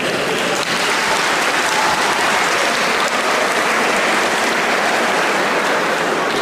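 Audience applauding steadily in a large gymnasium hall.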